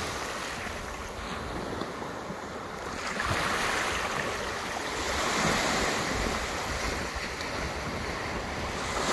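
Small waves washing up onto a sandy beach, growing louder about three seconds in.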